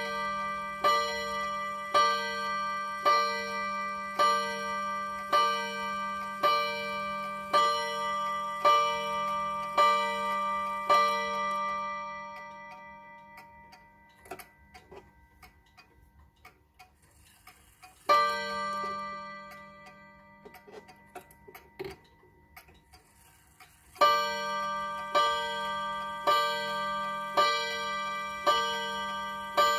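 Seiko pendulum wall clock striking the hour on its gong, about a dozen ringing strikes about one a second that die away. The hands are turned on, and the clock gives a single strike for the half hour. It then starts striking twelve again near the end, with faint ticking from the pendulum movement in the gaps.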